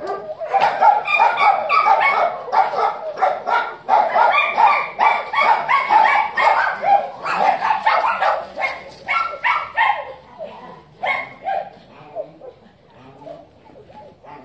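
Several dogs barking together, the barks coming fast and overlapping for the first ten seconds or so, then thinning out to scattered barks near the end.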